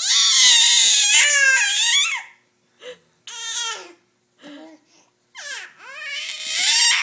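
A baby squealing and babbling loudly. A long, high-pitched squeal with wavering pitch comes first, then a few short calls, then another rising squeal near the end.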